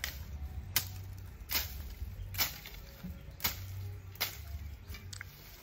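Six sharp knocks, about one a second, over a low steady rumble.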